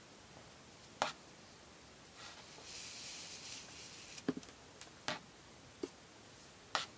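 Hands handling and pulling knotting cords through a knot: a handful of small clicks and taps, with a brief soft rustle of cord being drawn through the loops in the middle.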